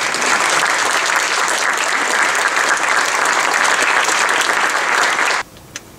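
Audience applauding, steady and loud, stopping abruptly near the end.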